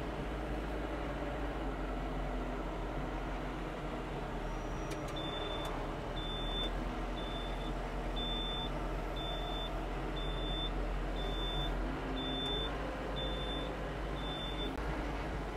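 Yanmar tractor's diesel engine running steadily while it moves a loaded front-loader bucket. From about five seconds in, a high warning beep sounds about once a second, ten times in all.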